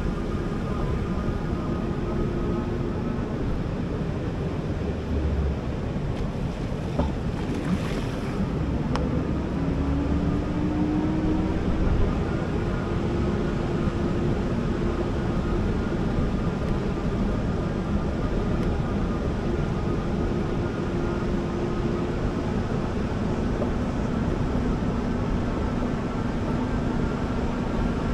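Wind rushing over the microphone and surf breaking during an e-bike ride on the beach, under a steady low electric-motor hum that dips and climbs back in pitch about nine to eleven seconds in.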